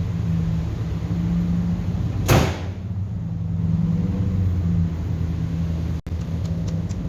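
Pickup truck engine running steadily, with one loud bang about two seconds in.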